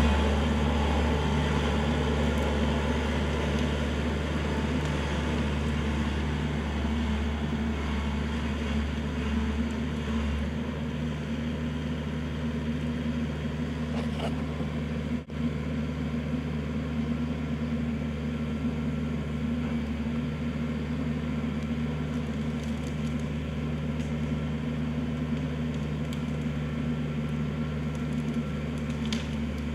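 Kubota L4400 tractor's four-cylinder diesel engine running steadily. It is a little louder in the first few seconds, then settles slightly lower, with a brief dip about halfway through.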